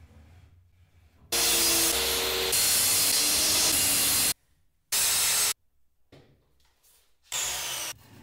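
A circular track saw running and cutting through a wooden panel along its guide rail. It starts about a second in and stops abruptly after about three seconds. Two shorter bursts follow, the last one quieter.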